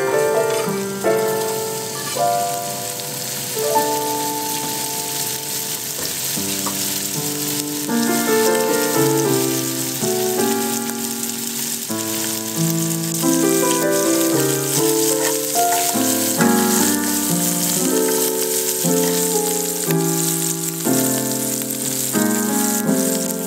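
Diced pancetta sizzling as it fries in olive oil in a stainless steel pan, the cubes dropped in near the start and crackling steadily as they brown. Gentle piano music plays over it throughout.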